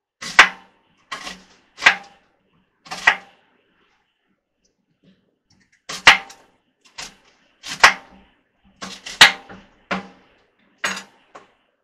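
Kitchen knife chopping an onion on a wooden cutting board: about ten single, sharp chops at an uneven pace, with a pause of about three seconds partway through.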